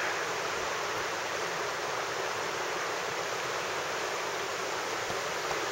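Steady rushing of flowing water, an even hiss with no separate events.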